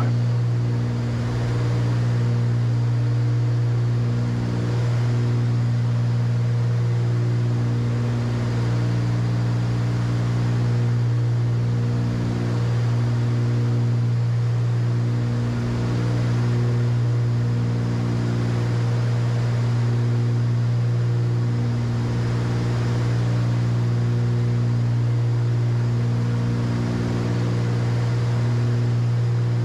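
Cessna 310Q twin piston engines and propellers droning steadily in a cruise climb, heard from the cockpit. A strong low hum with higher tones that swell and fade in a slow, regular cycle every couple of seconds.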